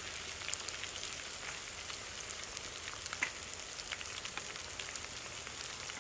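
Sliced onions and green chillies frying in a deep pot of hot oil, with red chilli powder just added: a steady sizzle with scattered small pops.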